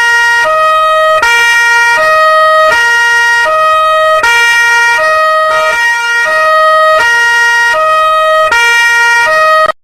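Police two-tone siren alternating between a high and a low note, each held for about three-quarters of a second, repeating steadily and cutting off suddenly near the end.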